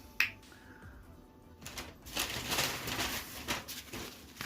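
Rustling and crinkling of a sandwich and its paper wrapper being handled, with a sharp click just after the start and the crackling growing busier from about a second and a half in.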